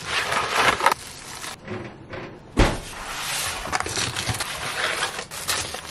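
Cardboard frozen-pizza boxes being handled and torn open, with rustling and crinkling throughout and a single thump about two and a half seconds in.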